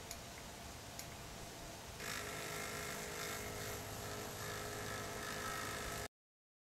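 Two light clicks, then about two seconds in a stepper lens motor starts turning the camera lens's geared focus ring, running with a steady whine of several tones for about four seconds as it pulls focus.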